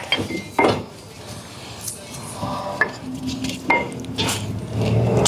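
Metal-on-metal clinks and knocks, several separate ones, as a C-clamp and an old brake pad are handled against a brake caliper. A low steady hum comes in near the end.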